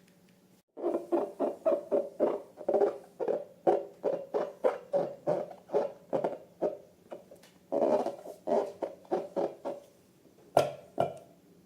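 Slime squelching in a run of quick squeezes, about three a second, with a short pause midway. Two sharp clicks come near the end.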